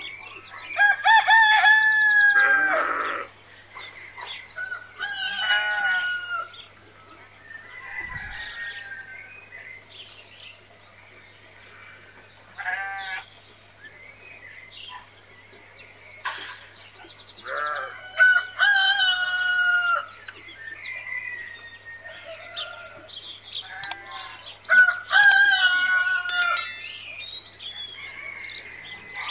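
Roosters crowing again and again, the loudest crows about a second in, about two-thirds of the way through and near the end, with chickens clucking between them.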